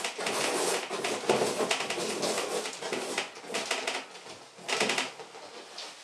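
Bristle paintbrush scrubbing oil paint onto canvas in quick, scratchy strokes, pausing briefly twice and stopping about five seconds in.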